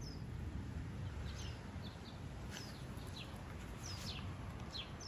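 Small songbirds chirping: a dozen or so short, high, downward-sweeping chirps scattered irregularly, over a low rumble of wind on the microphone.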